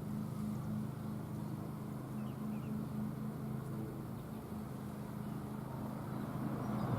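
A vehicle engine running at a steady idle, a low even hum with a slight pulsing.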